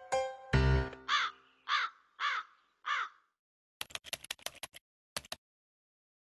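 A crow cawing four times in even succession, each call short, after the tail of a short musical sting. Then a quick run of sharp typing-like clicks.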